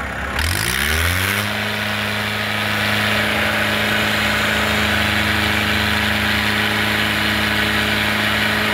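A tractor's diesel engine revs up quickly in the first second and a half, then holds steady at high revs.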